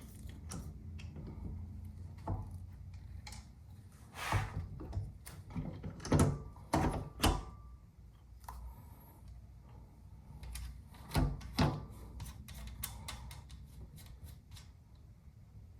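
Irregular clicks and knocks of rifle parts and tools being handled during hand assembly, with a cluster of louder knocks in the middle and a pair more later on.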